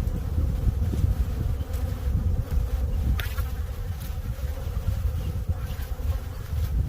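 Steady buzzing hum of many honeybees at a hive, with low rumbling underneath.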